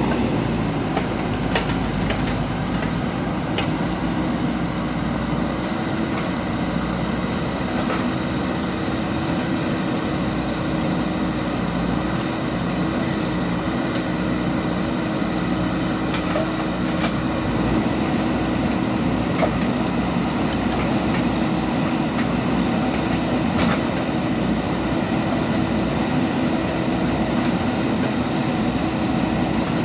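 JCB backhoe loader diesel engine running steadily under work, with a handful of sharp knocks scattered through it.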